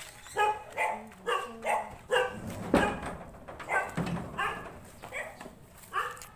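A dog barking repeatedly, about twice a second, with a louder knock a little before the middle.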